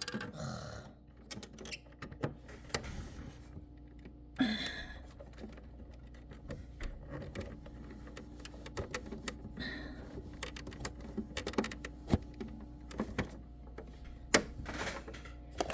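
Scattered, irregular light clicks and taps of hands handling sewing machine parts and its power cord, with a faint steady hum underneath.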